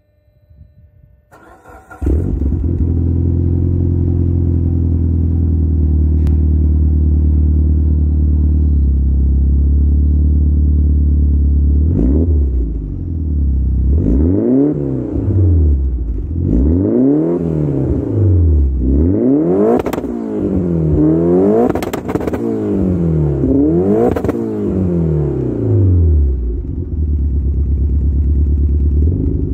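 Mitsubishi Lancer Evolution IX's turbocharged 2.0-litre four-cylinder engine starting up about two seconds in and idling through a one-off Three Piece! dual-exit exhaust. It is then blipped about six times, the revs rising and falling each time, with sharp afterfire pops on some of the drops, and settles back to idle near the end.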